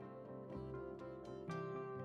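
Instrumental background music, with new notes starting about once a second.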